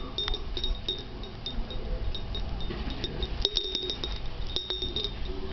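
A small metal bell on a parrot toy jingling in short shaken bursts as a caique tugs at the toy, with two louder bursts around the middle and near the end.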